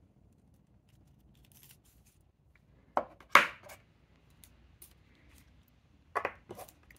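Rock specimens handled and set down on a paper-covered tabletop: two sharp clacks about three seconds in, the second the loudest, and a few lighter knocks near the end, with faint rustling between.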